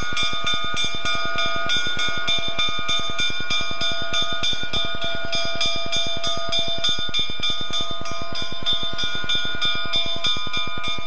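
Diesel locomotive moving slowly with its engine running and its bell ringing steadily and continuously.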